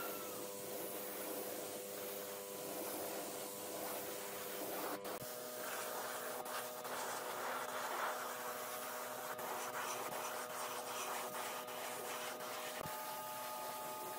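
Gravity-feed spray gun hissing steadily as it sprays wood finish onto a wooden lamp, the sound changing abruptly twice.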